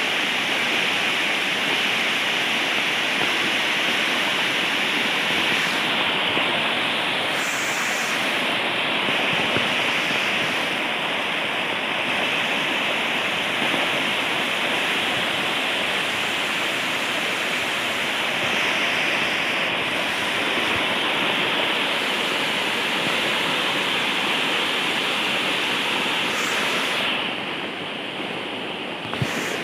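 Steady, loud rush of water, as from fast-flowing floodwater or heavy rain, with no break until a brief softening near the end.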